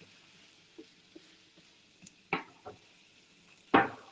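Chopped onion sizzling faintly in olive oil in a stainless-steel pan while a wooden spoon stirs it, with a few light knocks of the spoon on the pan and two sharper knocks, the loudest near the end.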